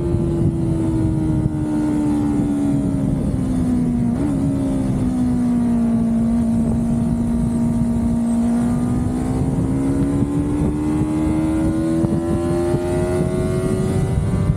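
A car driving, its engine note sinking slowly through the first half and climbing back up through the second half, over a steady low road and wind rumble.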